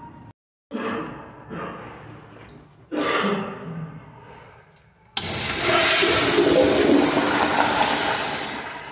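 A Kohler Kingston toilet's flushometer valve flushing: a sudden loud rush of water starts about five seconds in and fades near the end, after some brief scuffing and handling noise.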